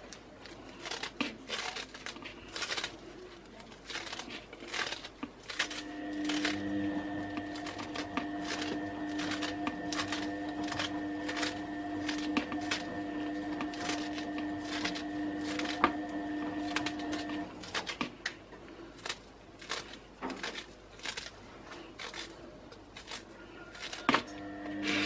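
Crisp lettuce leaves being torn and crushed by hand into a plastic bowl: irregular crunchy snaps and crackles. A steady hum with a few constant tones comes in about six seconds in and stops a little after seventeen seconds.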